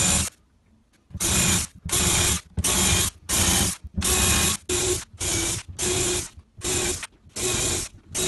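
Compact Bosch cordless drill run in about a dozen short bursts, boring shelf-pin holes for adjustable shelves into a melamine-faced chipboard wardrobe panel, one burst per hole.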